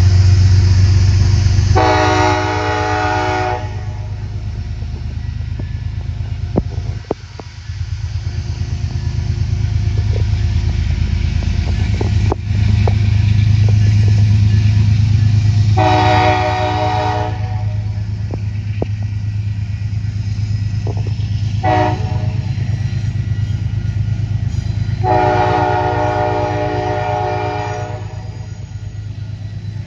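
Train horn sounding the grade-crossing signal: two long blasts, a short one, then a final long one, over a steady low rumble.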